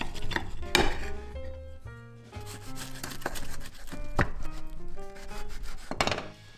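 A chef's knife sawing down through a crisp, pan-toasted tortilla wrap, crackling strokes that end against the plate and, later, a wooden cutting board. Swing-style background music plays throughout.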